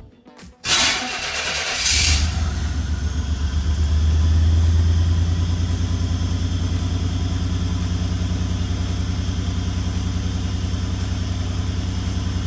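Buick Grand National's turbocharged 3.8-litre V6 cranking for about a second, catching about two seconds in, then idling steadily after a brief rise in idle. This is the first start after fitting a new T04E60 turbo, on a freshly reset chip tune.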